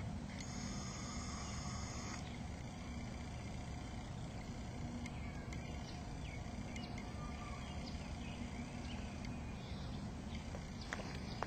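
1966 BSA Lightning's 650 cc parallel-twin engine idling steadily.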